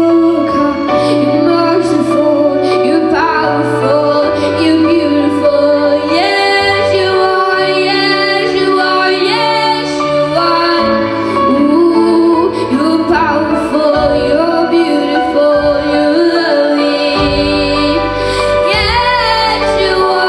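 Worship song with a woman singing over instrumental accompaniment and a steady bass line.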